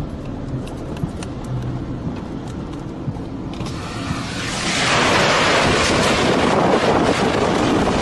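Tornado winds blasting the microphone: a steady rushing noise that grows much louder about four to five seconds in.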